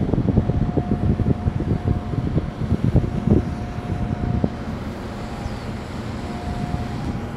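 A large container ship passing close by: a low, uneven rumble with a faint steady hum that drops out and returns. Gusts of wind buffet the microphone.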